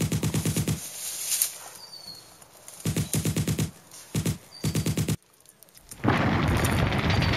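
Dubbed machine-gun sound effects: several bursts of rapid automatic fire separated by short gaps, then about six seconds in, a louder, denser stretch of noise.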